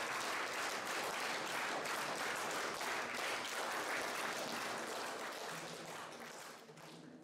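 Audience applauding, steady at first and fading out over the last couple of seconds.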